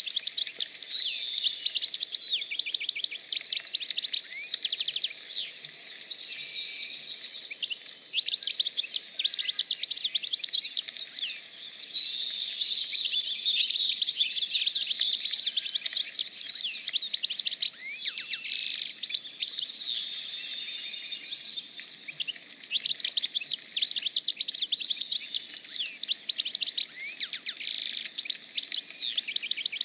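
Many small birds chirping and singing at once in a dense, overlapping chorus of quick high chirps and short whistled sweeps.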